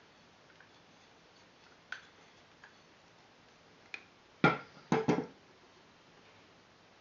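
Hard parts of a GHK AK gas-blowback airsoft rifle being handled: a few light clicks, then three sharp clacks in quick succession a little past the middle, the first the loudest.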